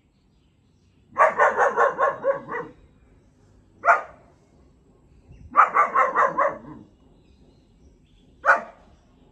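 German shepherd puppy, about four months old, barking: two rapid volleys of yapping barks, each about a second and a half long, each followed a second or two later by a single sharp bark.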